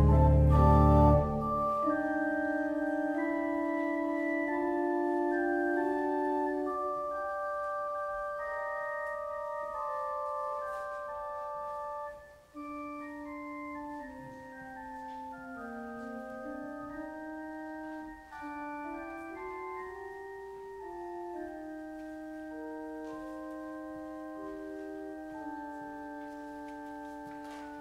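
Church organ played as a duet by two organists. Loud low pedal notes stop about a second in, and the playing goes on softly in held chords over a slowly moving lower line, with a brief break between phrases about twelve seconds in.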